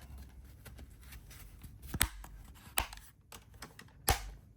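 Plastic back cover of an MSI Claw A8 handheld being pressed on and snapping onto its clips: three sharp clicks about two, three and four seconds in, the last the loudest, with fainter handling ticks between.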